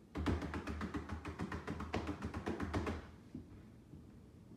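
Rapid typing on a laptop keyboard, many keystrokes a second, stopping about three seconds in.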